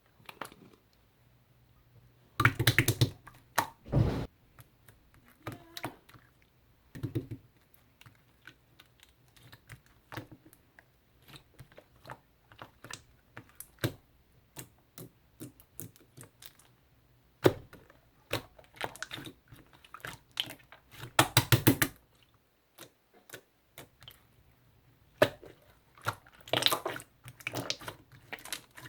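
Irregular sticky clicks and wet squelches from a firm, jelly-textured tangerine pudding being handled, with denser, louder clusters a few times.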